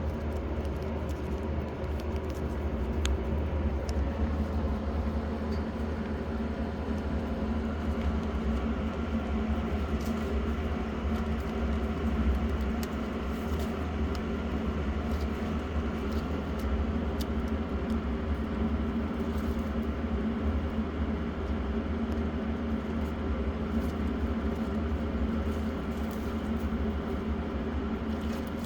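Loud electric fan running steadily: a constant low hum with a few faint clicks over it.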